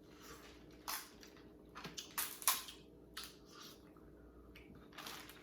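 King crab legs being cracked open by hand: a series of short, sharp cracking snaps of shell, the loudest about two and a half seconds in.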